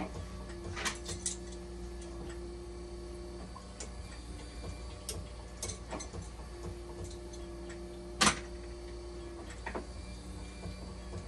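Hemodialysis machine running with its hydraulics exposed: a steady low hum, a mid-pitched tone that comes on for about three seconds twice, and scattered clicks and ticks, one much louder click about three-quarters of the way through.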